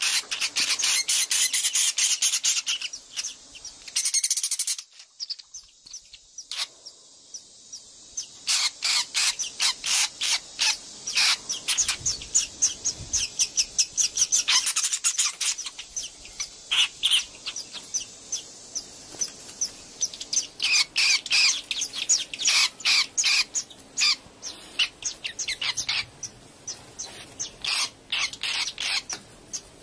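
Swiftlets chirping: fast trains of short, high twittering chirps, several a second, with a lull about five seconds in before the chirping picks up again.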